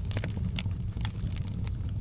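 Fireplace fire crackling, with frequent irregular pops and snaps over a steady low rumble of flames.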